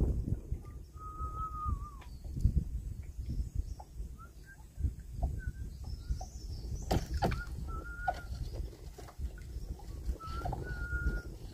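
Thin high whistled notes, several held steady for about a second, with a few short chirps in between, over a constant low rumble and scattered knocks.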